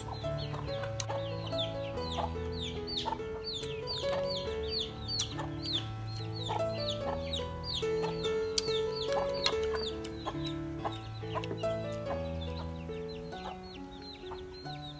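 Background music of steady held notes, with a continuous run of quick, high, falling chirps, three or four a second, over it.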